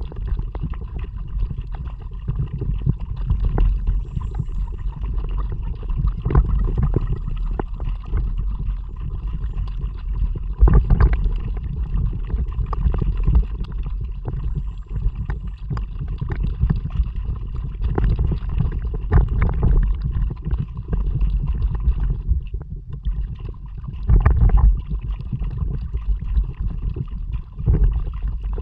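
Water gurgling and splashing around a kayak under way, over a steady low wind rumble on the action camera's microphone, with a few louder splashes at irregular moments.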